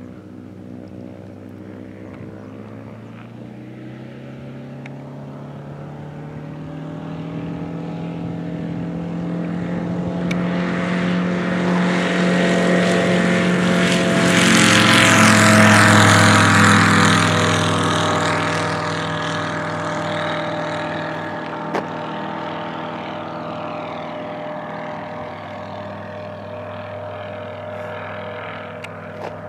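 Kitfox light aircraft's Rotax 912ULS flat-four engine and propeller at full takeoff power: the steady drone grows louder as the plane rolls down the runway, passes close about halfway through with a slight drop in pitch, then fades as it climbs away. The propeller is pitched too coarse, holding the engine to a little over 5,200 rpm on takeoff.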